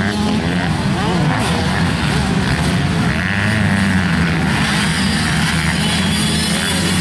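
Several 85 cc two-stroke motocross bikes running around a dirt track, their engines revving up and down as the riders take the jumps.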